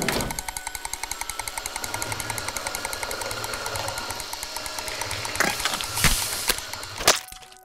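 Cartoon sound effect of an ice cream dispensing machine running: a fast, even mechanical rattle with steady whining tones. Near the end come a few sharp splats as melted ice cream splashes out.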